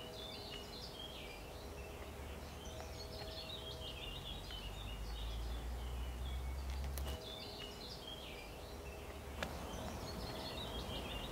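Outdoor ambience of several small songbirds singing and chirping over a low, steady rumble; the rumble drops away abruptly about seven seconds in, while the birdsong carries on.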